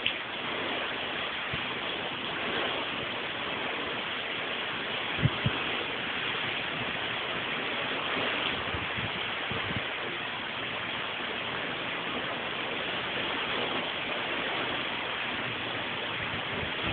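Heavy rain pouring down in a steady rush. Two brief low thumps come through it, about five seconds in and again near the middle.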